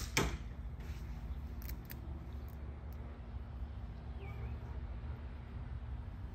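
A slingshot shot's ball hitting a 60 mm spinner target about a quarter second in, a sharp hit with a short ring, just after the crack of the band release. Then a few faint clicks as the next ammo is loaded into the pouch.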